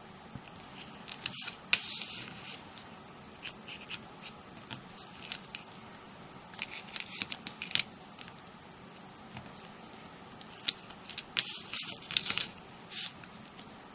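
Backing liner being peeled off double-sided tape on a craft frame: crackly ripping in three bouts, about a second in, around seven seconds and again near eleven to twelve seconds, with small clicks between.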